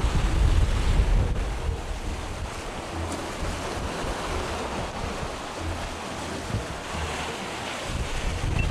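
Wind buffeting the microphone in gusty low rumbles, heaviest in the first second or so, over the steady hiss of sea surf washing against the rocks.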